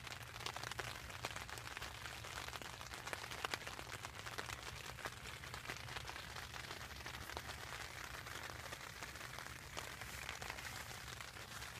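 Rain falling on a Big Agnes Copper Spur UL2 tent's rain fly, heard from inside the tent: a dense, even scatter of small drop ticks.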